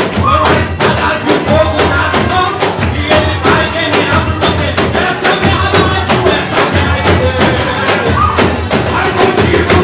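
Live congregational worship music: a man sings into a microphone over many hand tambourines shaken and struck in a fast, steady rhythm, with a bass beat underneath.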